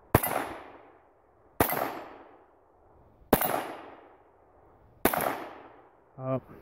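Four .22 pistol shots fired one-handed at steel plate targets, evenly spaced about a second and a half to two seconds apart, each dying away over about a second.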